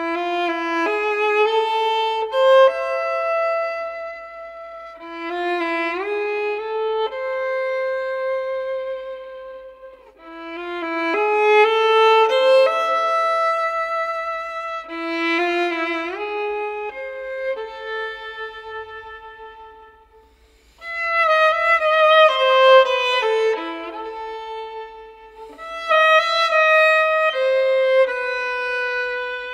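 Solo violin playing a slow melody, notes sliding into one another, in phrases of a few seconds with brief pauses between them.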